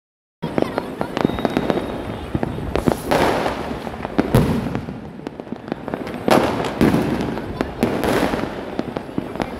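Many firecrackers going off: a dense, irregular scatter of sharp bangs and pops, with louder, longer crackling bursts about three, six and eight seconds in.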